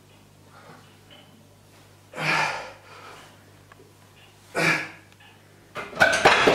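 A man's hard exhalations while pressing a barbell, two loud breaths about two seconds apart, as he grinds out close-grip bench press reps. Near the end, a short cluster of sharp metal clanks as the loaded barbell is set back on the rack.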